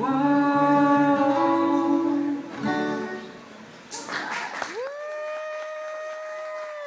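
Male voices singing a song's closing note over strummed acoustic guitar, which stop about three seconds in. After a short noisy burst, one long steady note is held, rising at its start and sliding down as it ends.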